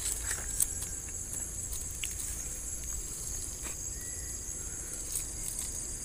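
Steady high-pitched insect chorus trilling without a break, with a few faint clicks.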